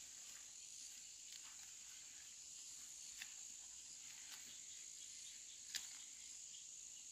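Faint steady high-pitched insect chorus, with two short clicks a few seconds apart.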